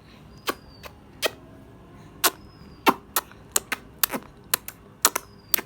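A baby making a string of sharp clicking sounds with his mouth, a dozen or more at irregular intervals, some louder than others.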